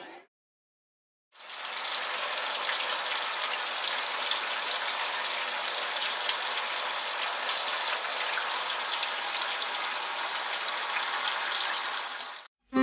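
Shower running: water spraying in a steady hiss, starting after a second of silence and stopping abruptly near the end.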